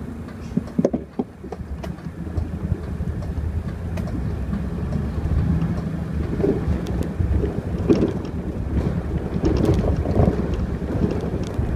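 Mercedes-Benz city bus heard from inside: the engine idles, a couple of knocks about a second in, then the engine rises as the bus pulls away and gathers speed, with rattles from the cabin.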